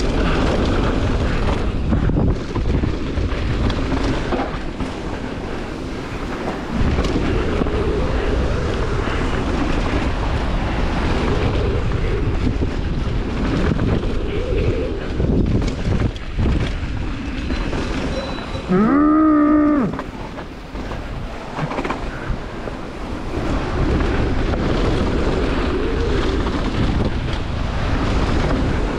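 Wind buffeting the microphone and tyres rumbling and rattling over the trail during a mountain-bike descent. About two-thirds of the way through, a rider gives one short shout, rising then falling in pitch.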